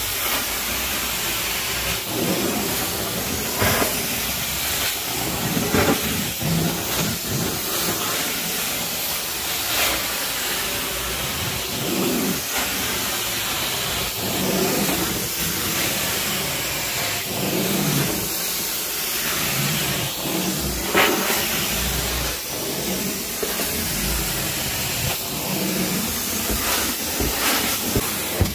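Carpet-cleaning hot-water extraction wand hissing steadily as its vacuum sucks spray water back out of the carpet, with short louder swells every few seconds as the wand is worked back and forth.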